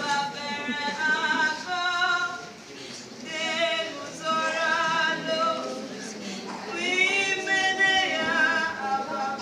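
Voices singing together unaccompanied: a slow song of long held notes, in phrases with a short break about two and a half seconds in and another around six seconds.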